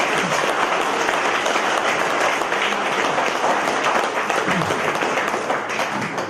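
Crowd applauding, a dense steady clapping that begins to fade right at the end.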